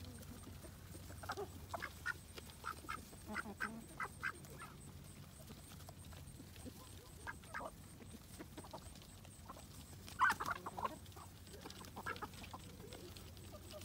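Ducks quacking and chickens clucking as a mixed backyard flock feeds. The calls come in short scattered runs, loudest in a burst about ten seconds in.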